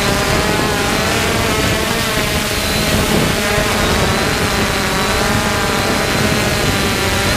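3DR Solo quadcopter's four electric motors and propellers running in flight: a steady multi-tone buzz whose pitches drift slightly up and down, with a thin high whine above it and a noisy low rumble underneath.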